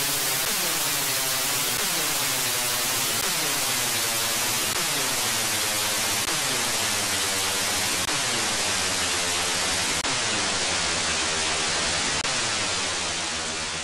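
Hissing static noise put through a repeating whooshing sweep, like a phaser, that comes round roughly once a second. It fades out near the end.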